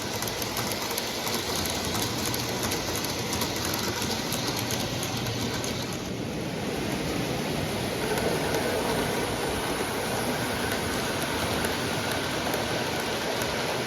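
O-gauge model train running around a three-rail track loop: the steady rumble of the wheels and motor, with faint fine clicking over the rail joints.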